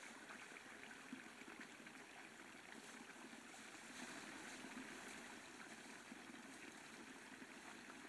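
Near silence with the faint, steady rush of a small stream.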